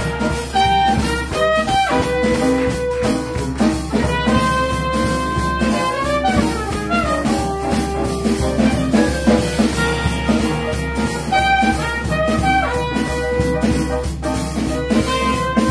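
Small acoustic jazz band playing live: trumpet and clarinet carry melody lines, with some notes gliding, over piano and a drum kit played with sticks on snare and cymbals.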